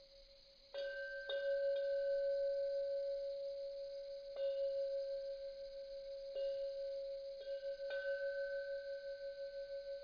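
A bell chime struck about seven times at uneven intervals, beginning about a second in. Each strike renews one ringing tone with a slow, wavering pulse, and the ringing carries on between strikes.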